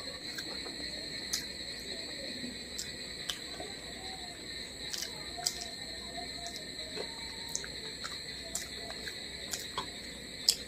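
A person eating rice by hand close to the microphone: chewing and lip-smacking heard as scattered small wet clicks, over a steady high-pitched whine in the background.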